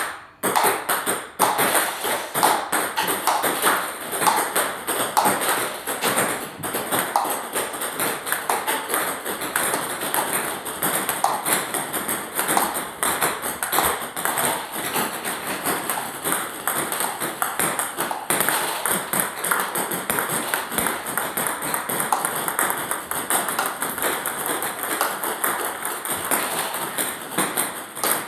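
Table tennis multi-ball feeding. Celluloid-type ping-pong balls are struck in quick succession with a light, hard feeding racket, each one clicking off the blade and bouncing on the table. It makes a steady, rapid patter of sharp ball clicks, several a second.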